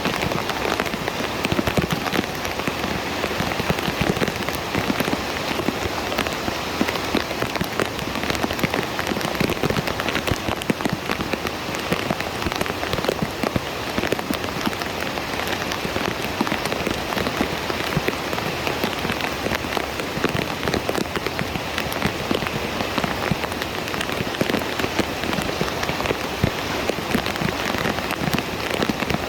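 Heavy rain falling on a hard surface: a steady, dense patter of countless drops.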